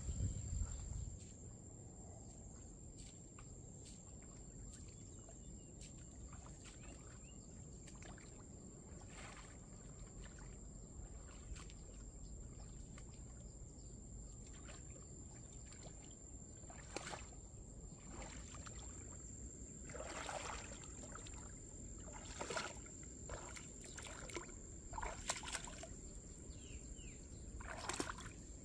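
Bare feet wading through shallow water and wet grass, with short splashes that come closer and grow louder in the second half. Under it are a faint steady outdoor hiss and a thin, steady high whine.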